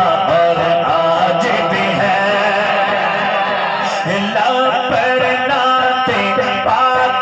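Man's voice singing a naat, a devotional Islamic recitation, in a drawn-out style with gliding pitch, amplified through a handheld microphone and PA system.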